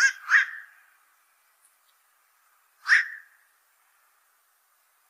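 Black-crowned night heron giving short, harsh calls: a quick pair at the start, then a single call about three seconds in, each trailing off with a short echo.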